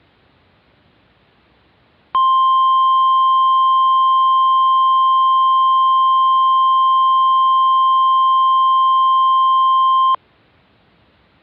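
Emergency alert tone: one steady, high, pure beep held for about eight seconds. It comes in about two seconds in and cuts off abruptly, over faint background hiss.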